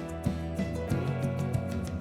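Background music: gentle instrumental music with plucked guitar-like notes over sustained tones.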